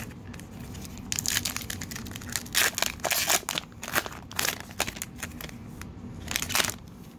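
Crimped foil wrapper of a baseball trading-card pack crinkling and tearing as it is ripped open by hand, a run of irregular crackles that stops about six and a half seconds in.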